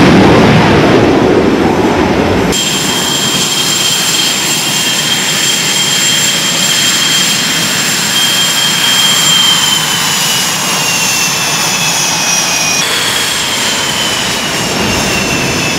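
F/A-18 Hornet jet noise on a carrier flight deck. For the first two seconds there is a loud roar from a Hornet launching. Then comes the high, steady whistling whine of a Hornet's jet engines as it taxis toward the catapult; the pitch slowly falls, jumps back up about thirteen seconds in, and drifts down again.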